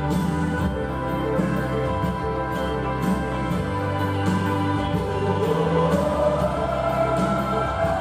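Music with a steady beat and voices singing, a sung line rising in pitch in the second half.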